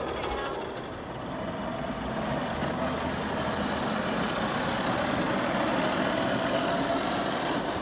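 Hard plastic tricycle wheels of a pedal-powered plywood boat rolling over pavement: a steady noise with a faint steady whine.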